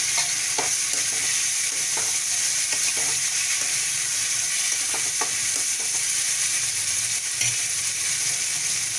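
Chopped tomatoes and fried onions sizzling in hot oil in a metal kadhai, with a steady hiss. A spatula scrapes and clicks against the pan now and then as the mixture is stirred.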